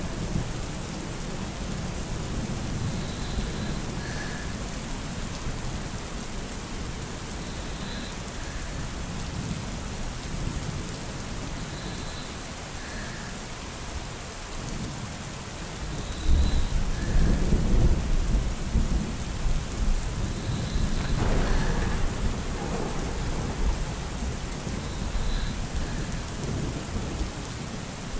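Steady rain with thunder. A low rumble swells about sixteen seconds in and rolls on for several seconds as the loudest part, with a sharper crack about twenty-one seconds in.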